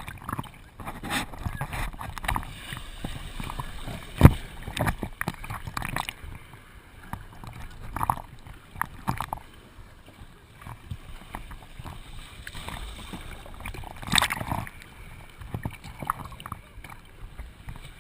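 Surf water sloshing and splashing close around a camera out in the waves, with a sharp knock about four seconds in and a loud splash about fourteen seconds in.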